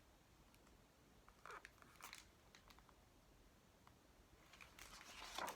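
Near silence with a few faint paper rustles and a soft swish near the end, a picture-book page being turned.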